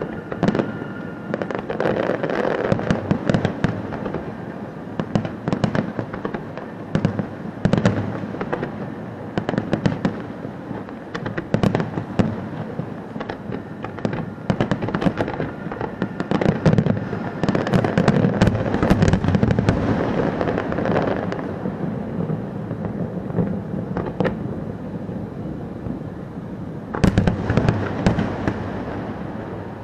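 Fireworks display going off: a continuous stream of bangs and rapid pops over a low rumble, with a louder, denser volley near the end.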